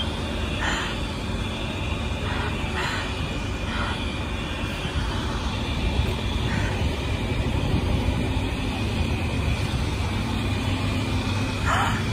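Outdoor street ambience on a phone microphone: a steady low rumble with a faint steady high tone over it, and a few brief faint sounds scattered through.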